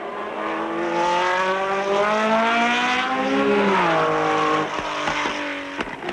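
Racing car engine accelerating hard, its pitch rising steadily for about four seconds, then dropping sharply at a gear change and pulling again, with a few sharp pops near the end.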